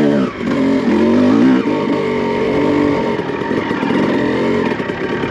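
Honda CR250 250cc single-cylinder two-stroke dirt bike engine pulling in second gear as the throttle is rolled on. Its note swells, then drops back about a second and a half in and runs on lower.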